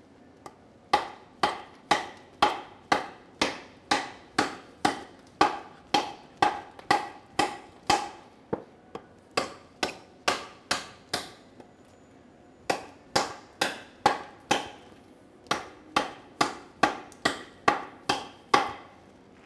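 Goodman combat knife chopping into a wooden 2x4 to cut it in half: a steady run of sharp strikes of blade into wood, about two a second, with two short pauses.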